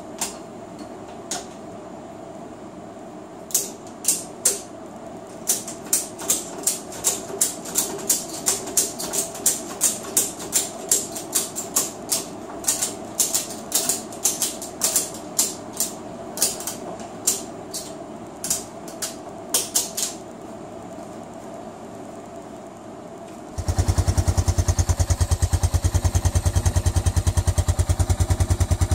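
Ratchet tie-down strap being cranked to tension ATV half-tracks made of studded winter tyres: a long run of sharp ratchet clicks, about two a second. Near the end it gives way to an ATV engine running, a loud, even throb.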